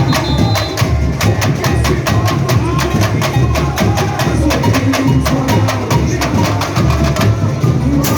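Samba school drum section (bateria) playing a samba beat: rapid, evenly spaced sharp clicks over deep, steady bass drumming.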